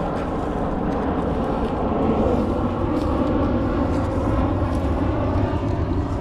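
A steady engine drone that swells over the first two seconds and then holds.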